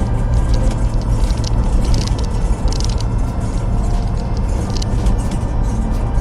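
Background music with a regular beat, laid over the low, steady rumble of a vehicle driving.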